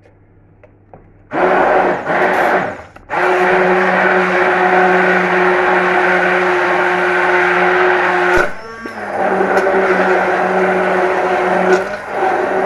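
Electric blender puréeing cooked onions and cooking liquid into soup. Its motor starts about a second in and runs with a steady hum, stopping briefly twice.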